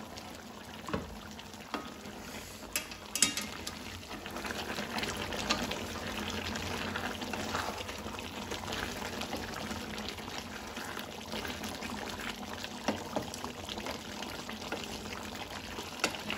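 Chicken curry boiling in a gravy in an aluminium kadai, a steady bubbling, stirred with a wooden spatula. A few light knocks of the spatula on the pan in the first few seconds.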